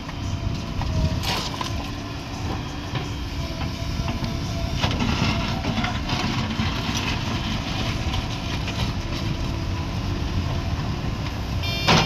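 JCB 3DX backhoe loader's diesel engine running steadily as the backhoe arm dumps a bucket of soil into a tractor trolley and swings back to dig, with a few light knocks. A brief high-pitched beep starts at the very end.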